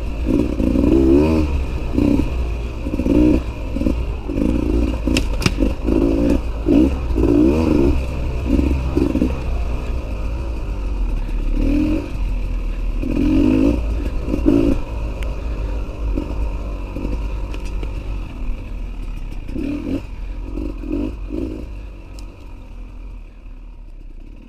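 Beta 300 RR two-stroke dirt bike engine revving up and down in short bursts under a constant low rumble, with clatter and a few sharp knocks from the bike. The sound fades away over the last couple of seconds.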